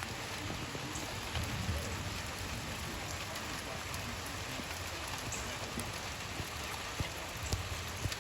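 Steady rain falling: an even hiss with a few scattered drops ticking.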